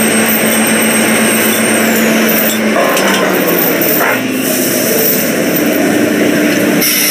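Loud, steady drilling-rig floor machinery noise: a dense drone with several held tones. The tones shift pitch about a third of the way in and again past the middle, and a high whine drops away near two seconds in.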